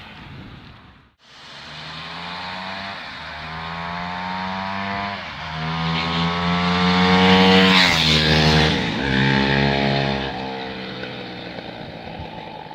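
Aprilia SXV 550's V-twin engine on its stock exhaust, revving up and shifting through several gears as the bike rides past. It cuts in after a brief gap about a second in, is loudest about eight seconds in, then fades away.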